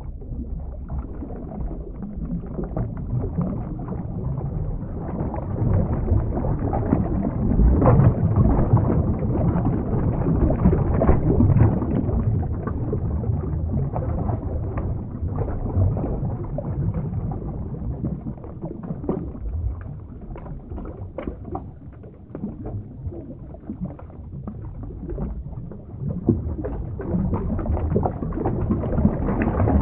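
Underwater ambience sound effect: a dense, low rumbling wash of churning water with bubbling crackle, swelling and easing in waves.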